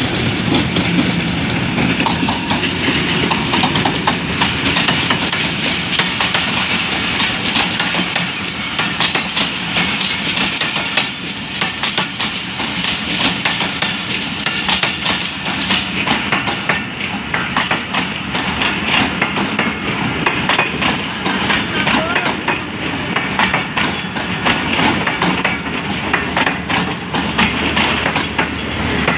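Passenger train coaches rolling past at close range, their steel wheels clicking over rail joints in a fast, steady clickety-clack.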